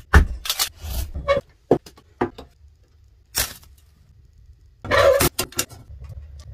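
Hatchet splitting kindling on a chopping block: a quick run of sharp knocks and clattering wood in the first second or so. A ferro rod is then scraped to light tinder, with a short rasp about five seconds in.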